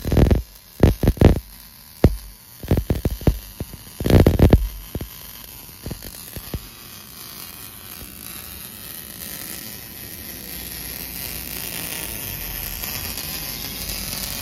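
MIG welding arc crackling and buzzing during a root pass on a vertical plate joint. Loud, uneven bursts of crackle for the first few seconds, then a steadier, quieter hiss and hum that slowly grows louder.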